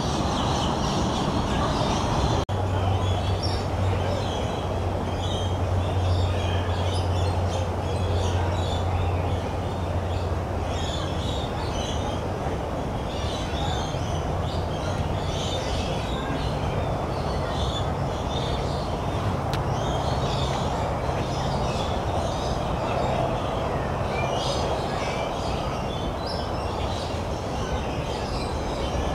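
A steady rumbling noise with a low hum that shifts in pitch partway through, under many small birds chirping throughout.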